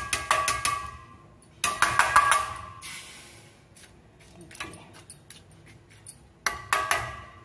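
Steel ladle knocking and scraping against a stainless-steel bowl as the curd is stirred, in four short bouts of clinks with a brief metallic ring.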